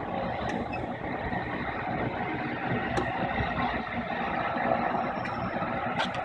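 Steady engine drone, like an engine idling, with no change in pitch or level.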